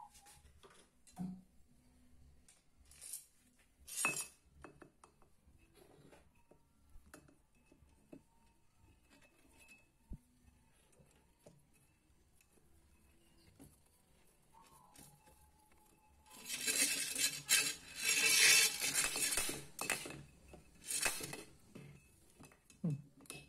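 Scattered light metal clicks and taps, then a dense stretch of metallic clinking about two-thirds of the way through and a few more clinks near the end: hand tools and small steel parts worked against a motorcycle's aluminium cylinder head while the valves are taken out.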